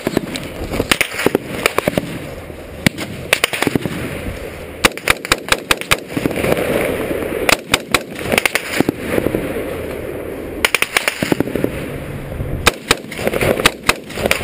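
Gunfire in a firefight: rifles shooting in short rapid bursts, several sharp cracks at a time, with single shots in between and more bursts every few seconds.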